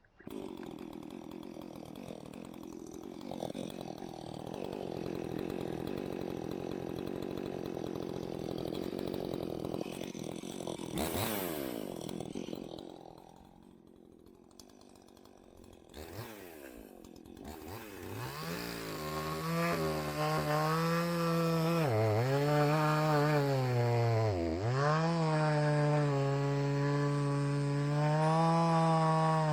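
Husqvarna 543 XP two-stroke chainsaw running. The first half is rough and noisy and eases off in the middle; then from about 18 seconds it holds a high, clear engine note that dips in pitch twice.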